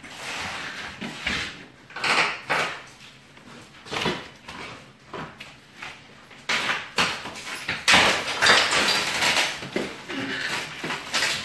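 Drywall and old plaster being pried and broken off wooden studs and lath: irregular cracking, scraping and crumbling, with bits falling. The noise comes in separate bursts at first and runs denser and louder over the last few seconds.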